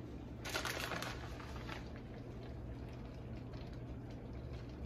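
Soft rustle of a plastic bag of shredded mozzarella as cheese is sprinkled over a pan, about half a second to a second and a half in, over a faint steady hum.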